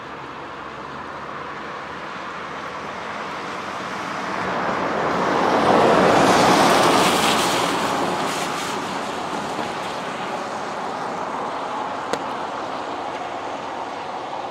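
A pickup truck driving past on wet asphalt: the hiss of its tyres on the wet road swells as it approaches, peaks about six to seven seconds in, then fades away slowly.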